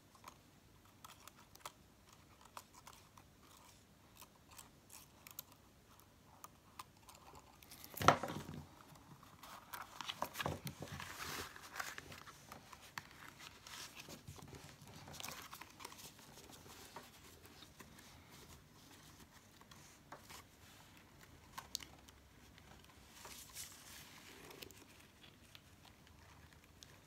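Cardstock being handled: paper rustling and small clicks as a glue stick is rubbed on card and the glued layers are pressed together and folded, with one sharp knock about eight seconds in.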